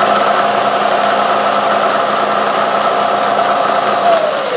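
Bridgeport milling machine spindle running steadily with a ball end mill cutting aluminium angle, over a steady hiss of spray coolant. About four seconds in, the cutter is clear of the work and the spindle's whine begins to fall in pitch as it spins down.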